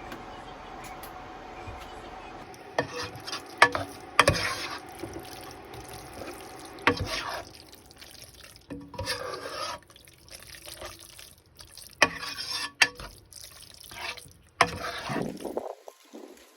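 Kitchen work: a series of irregular clinks and clatters of utensils and dishes, with splashing and stirring of liquid between them, over a steady hum at the start.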